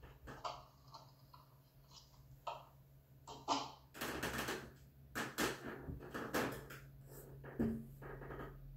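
Irregular knocks and clicks from a film's soundtrack, played through a computer monitor's speaker and picked up by a phone, over a steady low hum. The knocks come thicker from about four seconds in.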